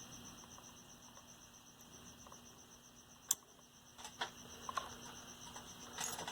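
Faint steady hiss and low hum from the ICT Solid State 10 transistor radio, which keeps sounding because its power switch never fully disconnects. One sharp click about three seconds in, then several lighter clicks and taps near the end.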